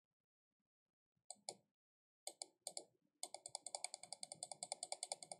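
Quiet computer mouse clicks from repeatedly clicking a debugger's step button: two single clicks about a second in, a few more near the middle, then a fast even run of about six or seven clicks a second from about three seconds in.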